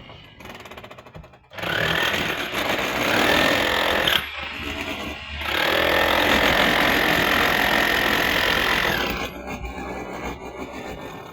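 A handheld power tool runs twice, the second run longer, each time with a high motor whine that climbs as it spins up and drops as it winds down, over a gritty cutting noise.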